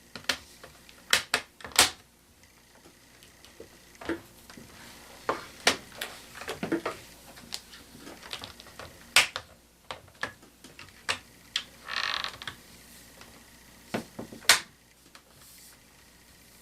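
Irregular sharp plastic clicks and snaps of a laptop's screen bezel being pressed back into place around the display, with a short scraping rustle about twelve seconds in.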